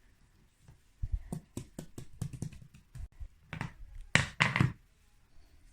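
Plastic fidget toys being handled: a run of small clicks and taps, then a few louder rustling bursts about four seconds in.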